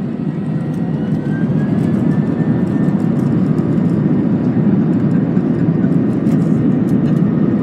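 Airliner jet engines at takeoff power, heard inside the cabin: a loud steady rumble that rises over the first couple of seconds and then holds, with a faint engine whine above it.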